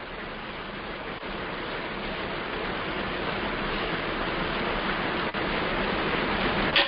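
Steady rushing hiss of background noise coming through an unmuted participant's microphone on a video call, growing slightly louder, with a brief sharp sound near the end.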